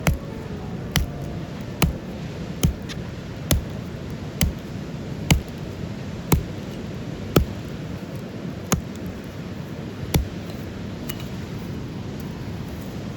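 A series of sharp knocking strikes, about one a second at first, then spacing out and stopping about ten seconds in, over a steady background hiss.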